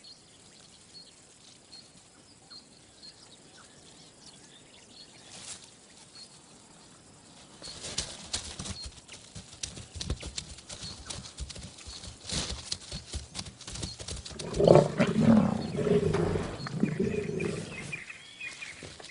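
Lions attacking a young giraffe: scuffling and thuds of the struggle start about a third of the way in, then lions growl for about three seconds near the end. Before that there are only faint repeated high chirps.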